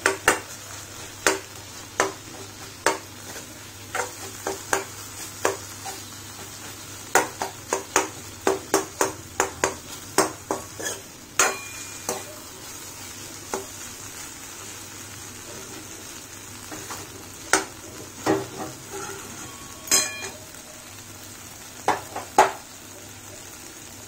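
Metal spatula scraping and tapping against a metal kadai as boiled potato, bitter gourd and tomato are mashed in it, over a steady sizzle. The clicks come thick and fast for the first half, then only now and then.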